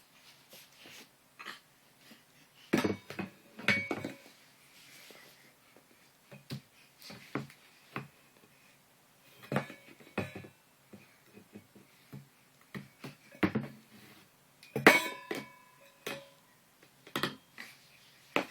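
Irregular knocks and clinks of hard objects being struck or handled, a few of them ringing briefly, the loudest about fifteen seconds in.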